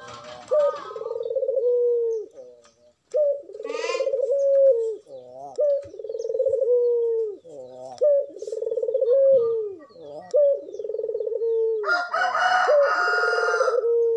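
Puter dove (ring-necked collared dove) cooing over and over, a low coo about every two seconds, each with a sharp start and a falling end, from a bird in full breeding condition. Near the end a louder, higher, harsher call overlaps the cooing.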